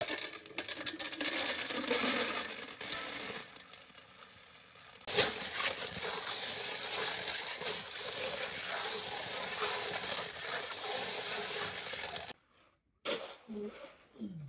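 Running water pouring into a basin while pond snails are tipped in and scrubbed by hand, the shells clattering against each other, with a sharp clatter about five seconds in. The water and scrubbing stop abruptly near the end.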